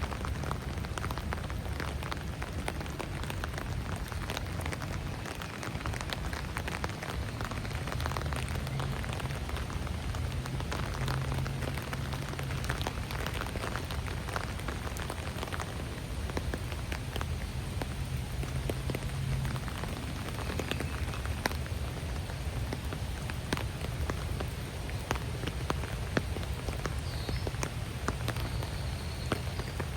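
Steady rain falling on wet ground and foliage: an even hiss full of separate drop ticks, over a low steady rumble. A bird gives a few faint high chirps in the second half.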